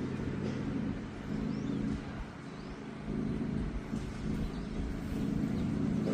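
A motor vehicle's engine running steadily, a low hum that swells and eases, with a few faint bird chirps over it.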